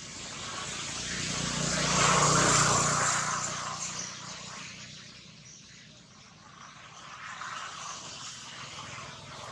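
A passing engine: a drone that swells to its loudest about two to three seconds in, then fades away.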